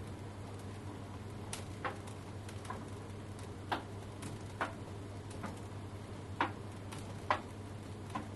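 Tumble dryer running: a steady low motor hum with irregular sharp clicks and knocks from the tumbling drum, about one a second.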